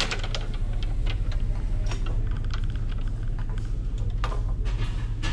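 Scattered clicks and knocks of goods being handled, with a quick run of ticks about two and a half seconds in, over a steady low hum.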